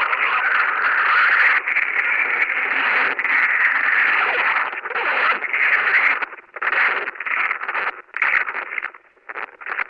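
Loud distorted noise like radio static, steady at first, then chopping into short bursts with brief gaps after about five seconds.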